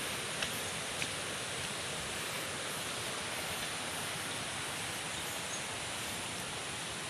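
Steady rushing of a nearby mountain river, an even hiss of flowing water. A couple of faint clicks in the first second.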